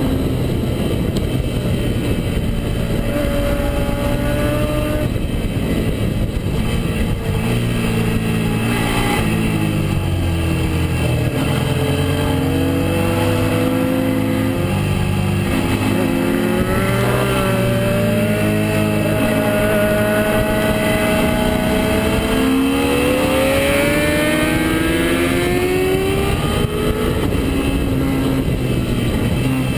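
Suzuki SV650S's 645 cc V-twin engine running hard on a track lap, its pitch climbing under acceleration and dropping off on braking into corners several times, over a steady rush of wind.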